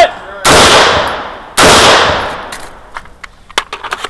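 Two shots from an AR-15-style rifle, about a second apart, each with a long echoing tail, followed by a scatter of light clicks and knocks.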